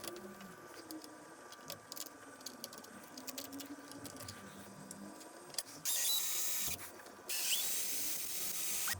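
Faint mechanical whirring with scattered clicks, then two loud bursts of hiss, the first about a second long and the second nearly two seconds, which start about six seconds in.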